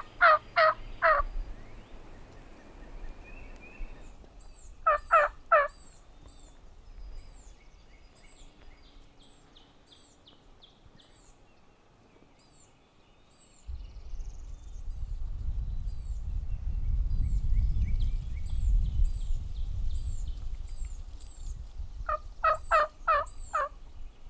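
Wild turkeys gobbling three times: a quick rattling run of notes right at the start, another about five seconds in, and another near the end. Faint, high, repeated chirps from a small songbird run underneath, and a low rumble sets in about halfway.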